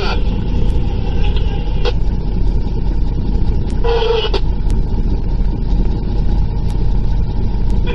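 Vehicle engine idling with a steady low rumble, heard from inside the cab. There is a brief louder sound about four seconds in.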